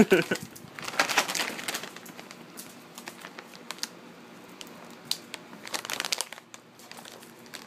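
Plastic dog-treat bag crinkling in irregular bursts, loudest about a second in and again around five to six seconds in.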